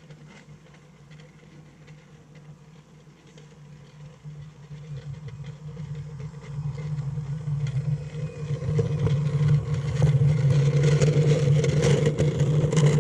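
Remote-control garden railway locomotive running toward the listener: a steady hum that grows much louder over the second half, with irregular clicks from the wheels and track.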